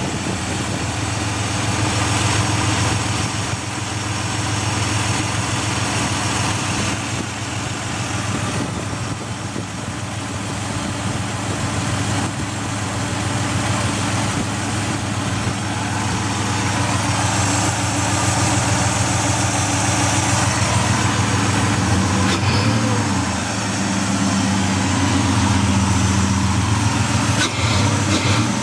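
Ford Escape XLT's 3.0-litre V6 idling with a rough idle, the engine's sound wavering briefly about three-quarters of the way through.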